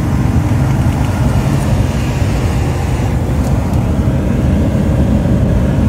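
Semi-truck cruising at highway speed: steady engine and road rumble heard from inside the cab.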